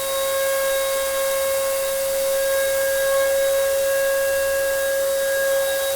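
An electric power tool running steadily without load: a constant high whine over a hiss, with no change in pitch.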